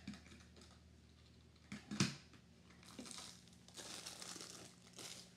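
Faint off-camera handling noise: a sharp knock about two seconds in, then rustling, crinkling sounds, over a low steady hum.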